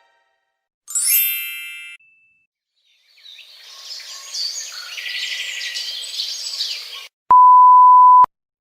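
Sound-effect clips in turn: a short bright chime about a second in, then birds chirping for about four seconds, then a single steady high beep lasting about a second, the classic censor bleep.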